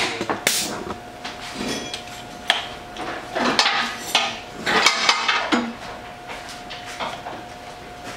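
Irregular metallic clicks and clatter of a compression tester being handled: the gauge and its hose fitting knocking about as the hose is worked into a spark plug hole on the cylinder head, between cylinder readings.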